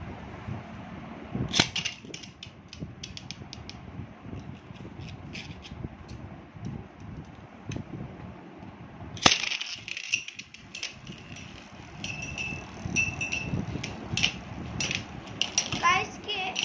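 Metal-and-plastic Beyblade spinning tops launched into a plastic tray stadium: a sharp clack about a second and a half in, another loud clack about nine seconds in, then quick clicking and clattering as the spinning tops strike each other and the plastic rim.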